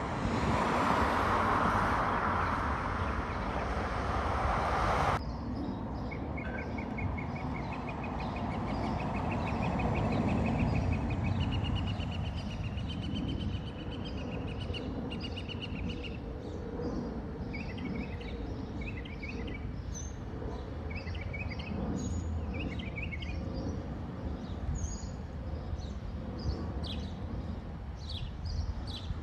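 Jet noise from an Airbus A321 overhead, a broad rushing sound that cuts off abruptly about five seconds in. Then the quieter, distant rumble of a Boeing 787-9 Dreamliner overhead, swelling and fading, with birds chirping in short repeated trills.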